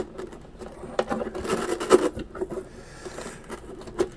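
Hands pushing and shoving a LiPo battery pack against freshly laid hook-and-loop Velcro in an RC boat's battery bay: irregular scraping and rubbing with a few sharp knocks.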